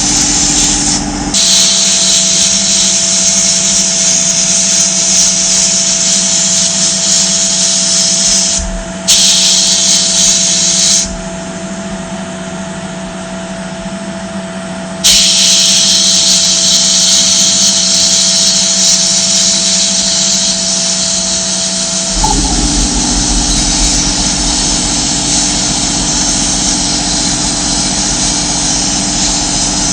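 Power tool running with a steady motor hum and a loud hiss. The hiss cuts out briefly about nine seconds in, then again from about eleven to fifteen seconds in, before coming back.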